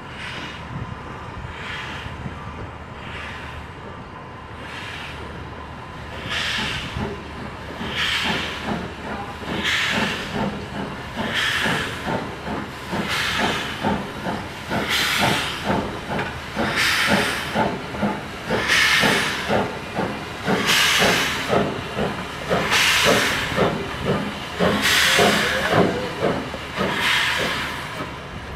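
0-6-0 steam locomotive working slowly, its exhaust chuffing about once every two seconds and growing louder as it draws near. A fast, even clanking of running gear and wheels runs under the chuffs.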